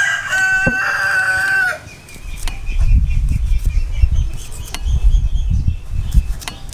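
A rooster crowing, one long held call that ends about two seconds in. Low rumbling buffets follow, with a few faint clicks.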